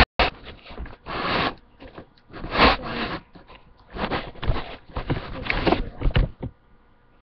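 Blankets and bedding rustling in irregular bursts as they are spread out and tucked in; the rustling stops about six and a half seconds in.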